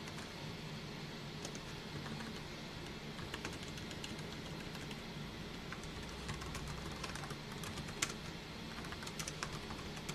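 Typing on a computer keyboard: irregular keystroke clicks, bunched into short runs, with one louder key strike about eight seconds in, over a steady low hum.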